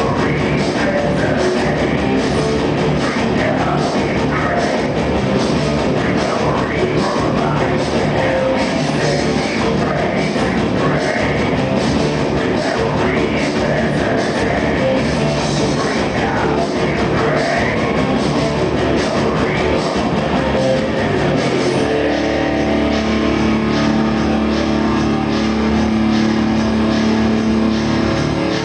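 Industrial metal band playing live at full volume, with drum kit and distorted guitars. About 22 seconds in the drumming stops and held guitar chords ring on.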